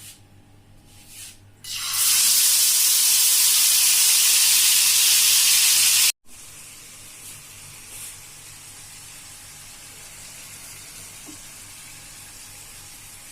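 Marinated chicken pieces sizzling loudly in hot oil in a frying pan, starting about two seconds in. After an abrupt cut, the frying goes on as a much quieter, steady sizzle.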